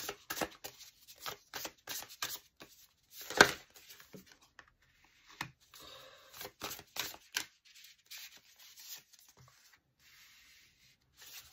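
A deck of oracle cards being shuffled by hand, with cards drawn and slid down onto a cloth: a run of quick riffling, rubbing and slapping sounds, with one louder slap about three and a half seconds in.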